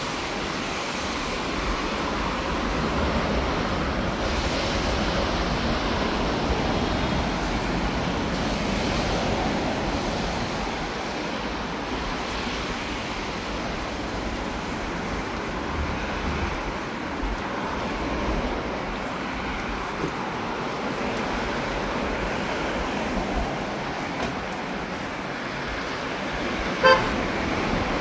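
Steady road traffic noise, with one short car horn toot near the end.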